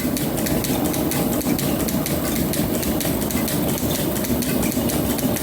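Belt-driven metal planer running, its tool cutting a steel bar: a steady mechanical clatter with rapid, regular ticking.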